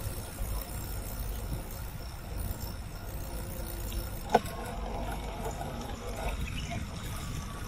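Wind buffeting the microphone and bicycle tyres rolling over a paved cycle path: a steady low rumble, with one sharp click a little over four seconds in.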